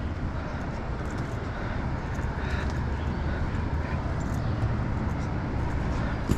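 Steady rushing noise of whitewater river rapids.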